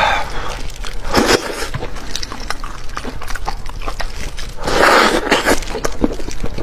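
Close-miked eating of a fatty fish head: wet lip-smacking and chewing clicks throughout, with short sucking noises just after the start and about a second in, and a longer, louder suck about five seconds in.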